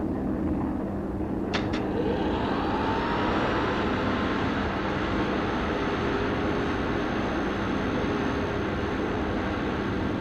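Sound effect of a spacecraft cabin's refrigeration machinery running after being turned up two steps: a steady hum. Two quick clicks come about a second and a half in, followed by a faint rising whine.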